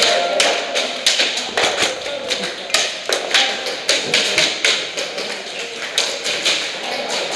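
Irregular sharp taps and knocks during an indoor airsoft skirmish in a plywood-walled arena, roughly one or two a second over a continuous background din.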